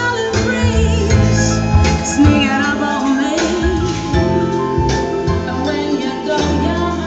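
A song with a singing voice over a pulsing bass line, played loud through a car audio system with boot-mounted subwoofers.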